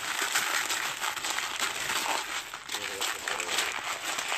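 Dried beans rattling and pouring over one another in a plastic tub as a ferret digs and thrashes through them, a dense run of small clicks, with a plastic bean bag crinkling.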